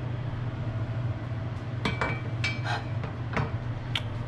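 Several sharp knocks and clinks of a kitchen knife on a wooden cutting board and metal, two of them with a brief metallic ring, starting a little under two seconds in. Underneath is the steady hum of a range-hood vent fan.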